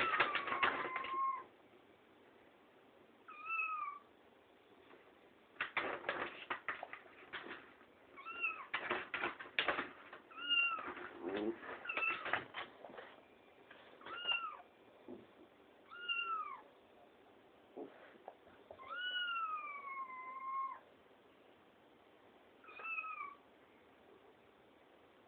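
A series of about nine meow-like calls, each a short arching cry that rises and falls, one near the start and one a little before the end drawn out for about two seconds, with bursts of rapid clicking between several of them.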